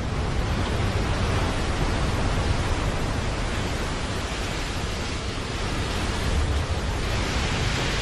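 Steady rushing noise of wind and waves at sea from a moving ship, the water churning and breaking along the hull, with a low rumble underneath and no distinct events.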